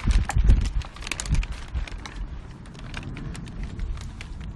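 Hands handling model rocket motors and igniters, making many small sharp clicks and rattles. Several heavy low thumps on the microphone come in the first half second.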